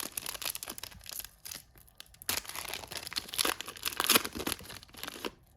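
Plastic trading card pack wrapper being torn open and crinkled by hand: irregular crackling and rustling, with a few louder rustles in the middle.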